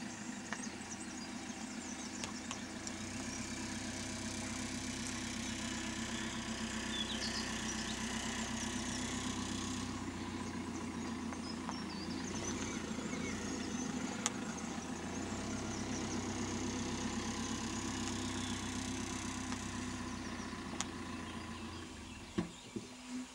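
Car engine running low and steady, dying away near the end. Birds chirp faintly above it.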